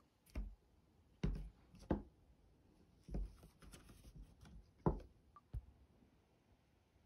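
About six soft, separate knocks and taps of a soy milk carton and tableware being picked up and set down on a tabletop.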